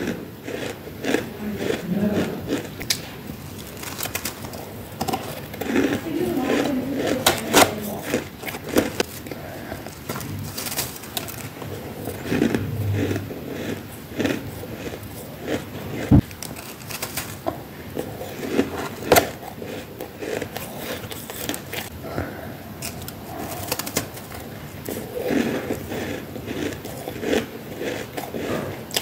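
Close-miked crunching of freezer frost: crisp, squeaky bites and chewing of packed frost chunks, along with a hand scraping and grabbing frost from a plastic tub. Irregular crunches and crackles come in quick clusters throughout.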